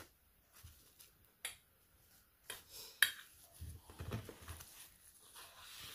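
Plastic cling film being handled and pressed over a glass baking dish: light crinkling, a few sharp clicks and soft knocks against the dish.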